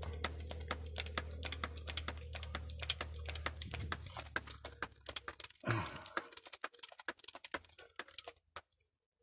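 Rapid, irregular clicking and rattling as a hand grease gun is worked on a combine harvester's grease fitting, over a steady low hum that stops about five and a half seconds in. A brief louder sound comes just before six seconds, and the clicks thin out to near silence near the end.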